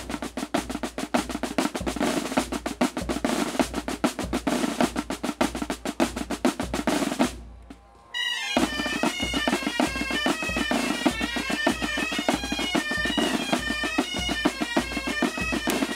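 Asturian pipe band: a snare drum plays fast rolls over a steady low bass-drum beat. After a short break about halfway through, the gaitas (Asturian bagpipes) come in with a melody while the drums carry on.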